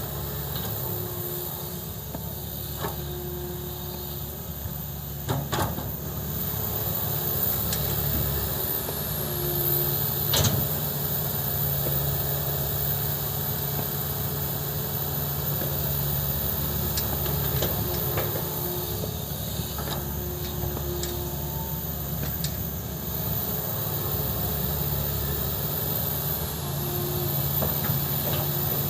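Excavator diesel engine running steadily, with a few sharp knocks during the work, the loudest about ten seconds in.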